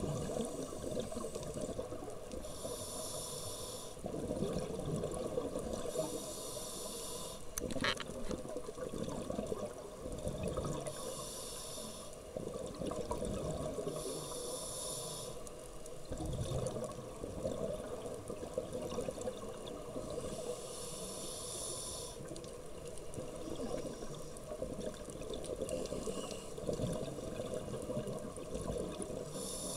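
Scuba diver breathing through a regulator, heard underwater: a hiss of inhaled air every few seconds, with a low bubbling rumble of exhaust bubbles in between. A single short click about eight seconds in.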